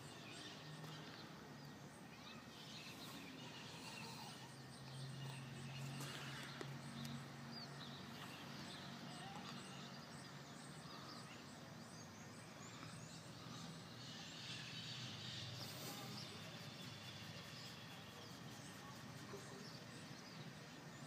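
Quiet outdoor ambience: a faint, steady low engine hum and occasional faint bird chirps.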